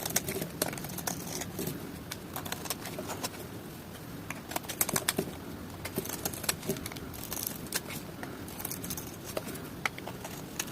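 Dry soap being cut, giving many crisp, irregular crackles and clicks.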